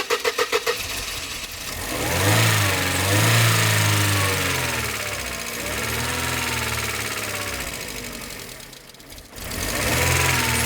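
Mercedes SLK engine cranking on the starter for about a second and a half, then catching and running, revved up and down about three times with the throttle. It sags near the end and picks up again. It keeps running only while a relay is held in by hand, which the mechanic takes for a faulty relay.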